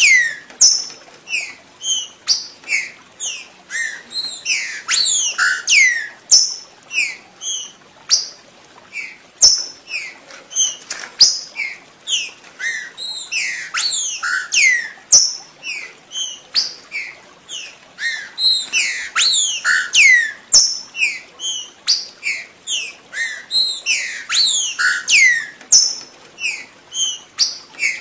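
Green-winged saltator (trinca-ferro) song: a fast, continuous run of short whistled notes, most sliding downward in pitch, several a second.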